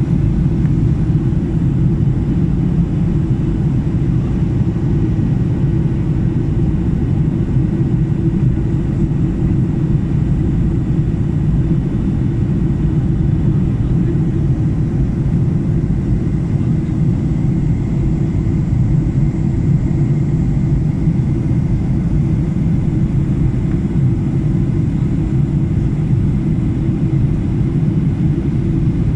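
Jet airliner cabin noise heard from a window seat beside the turbofan engine: a loud, steady low rumble with a faint steady whine above it.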